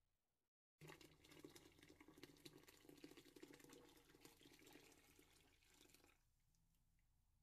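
Thick blended green sauce poured into a pot of broth, splashing continuously; it starts about a second in and stops near the end.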